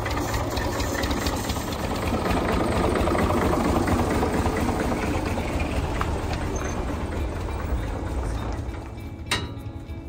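An old farm tractor's engine runs steadily at idle. Near the end comes a single sharp click, and the sound drops quieter after it.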